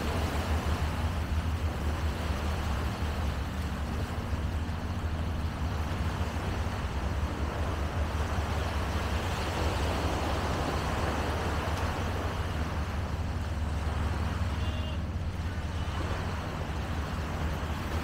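Steady outdoor background noise: a strong, constant low rumble under an even hiss, with no single event standing out.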